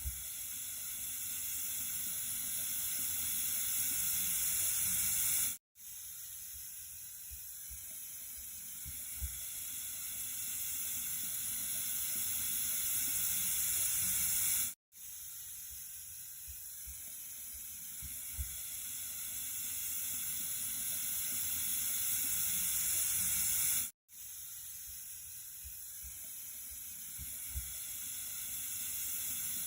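Running water, a steady hissing flow that slowly grows louder over about nine seconds, cuts out for an instant and starts again: a short recording looped three times over.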